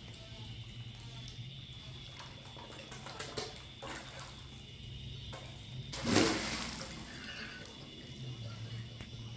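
Catfish splashing at the water's surface as they feed, with a few small splashes about three seconds in and one big splash a little after halfway.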